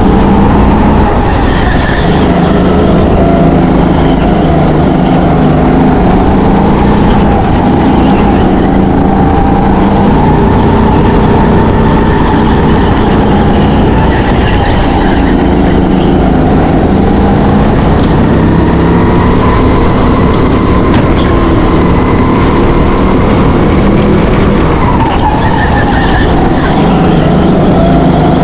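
Go-kart engine running hard while lapping a track, its revs repeatedly climbing and dropping back every few seconds.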